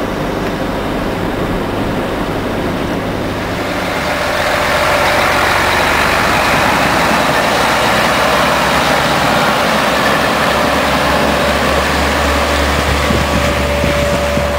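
Steady road noise from inside a following vehicle. About four seconds in, this gives way to a heavy Mercedes truck's diesel engine running as the truck pushes a Riko snow plough blade along the road. The blade scrapes over the slushy asphalt, and a steady low hum comes in later.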